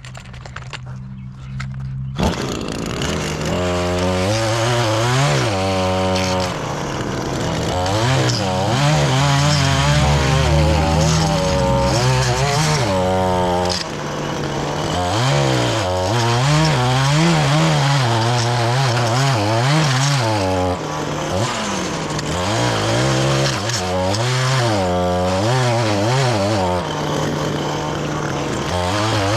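Echo PAS two-stroke powerhead driving an edger attachment, its blade cutting along a lawn edge. It idles, is throttled up about two seconds in, and then revs up and down repeatedly as the blade works.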